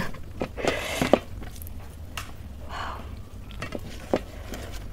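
Bare hand mixing rice with curry in a metal plate: soft squishing and rustling, with a few light clicks of fingers against the metal.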